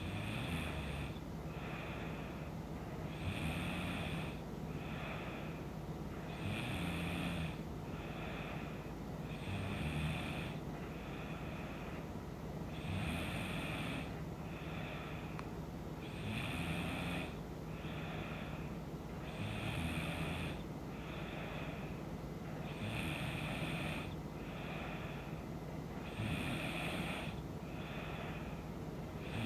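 A woman snoring in her sleep in a steady rhythm, about one breath every three seconds, each louder snore followed about a second later by a softer one.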